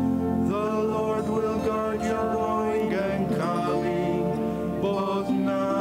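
Male cantors singing a slow liturgical chant, with the melody moving from note to note over held low accompanying chords that change only a few times.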